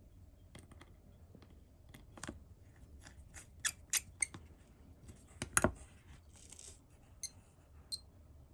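Small screwdriver clicking and scraping on the tiny screws and metal back plate of a Casio digital watch as the case-back screws are driven in: a run of irregular light metallic clicks, a few sharper ones near the middle.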